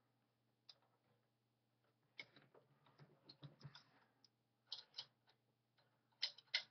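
Faint, scattered metallic clicks and taps from the bare internal mechanism of an old Singer 27 sewing machine being handled and turned during reassembly, with small clusters of clicks in the middle and a couple of sharper ones near the end.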